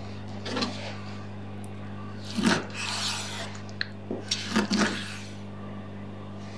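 A knife working through raw chicken leg meat on a wooden chopping board: several separate wet, squishy cuts, the loudest about two and a half seconds in and a quick cluster near the end. A steady low hum runs underneath.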